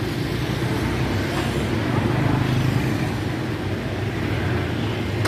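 Steady rumble of street traffic, with engine noise swelling slightly around the middle.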